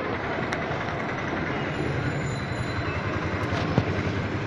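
Steady rumble of passing road traffic, with a couple of light clicks, one about half a second in and one near the end.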